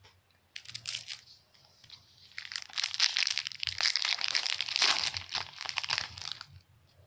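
Trading-card pack wrapper being torn open and crumpled: a few short crinkles, then several seconds of dense crinkling.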